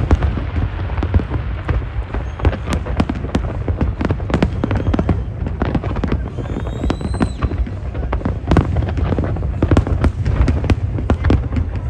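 A large fireworks display: a continuous rapid barrage of bangs and crackles over a deep rumble. A brief gliding whistle is heard a little past halfway.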